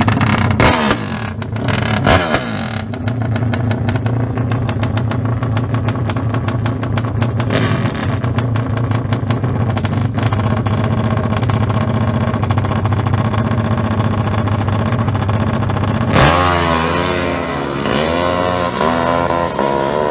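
Open-exhaust four-stroke drag motorcycle, a Yamaha Exciter fitted with a Honda CBR cylinder head, blipped a couple of times and then held at high, steady revs on the start line. About sixteen seconds in it launches and pulls away through the gears, its pitch climbing again and again.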